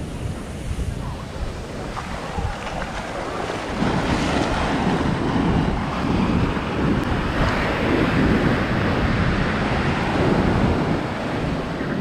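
Ocean surf washing onto a sandy beach, mixed with wind buffeting the microphone. The surf gets louder about four seconds in.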